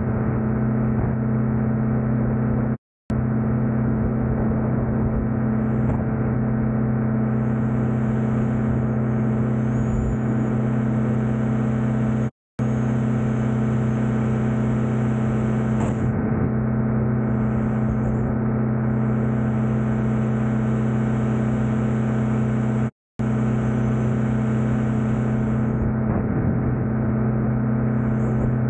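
Rotax 582 two-stroke twin engine of a C22 ultralight running steadily in flight, a constant deep drone with the propeller. The sound cuts out abruptly three times for a split second.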